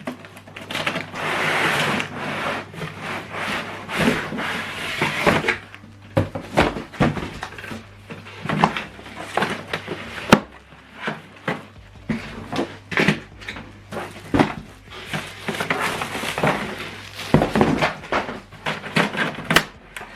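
Unboxing handling noise: paper and plastic packaging rustling, with irregular taps, knocks and clicks as items are taken out of the printer box.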